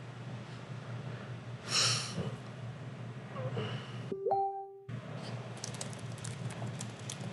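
Room tone with a steady low hum from the recording setup, a sharp breath or sniff into the microphone about two seconds in, and a short beep near four seconds, after which the sound cuts out for under a second. A run of faint clicking follows.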